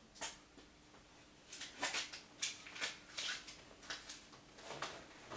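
Faint, irregular scuffs and knocks of a person moving about and handling things, one short one right at the start and a quick cluster from about a second and a half in, over a faint steady hum.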